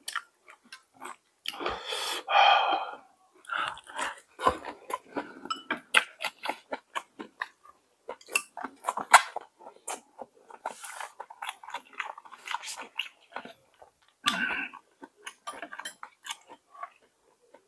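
Close-up eating sounds: a person chewing and smacking mouthfuls of jjageuli stew, full of many short irregular clicks and wet mouth noises. There are a couple of louder, longer mouth sounds, about two seconds in and near the end.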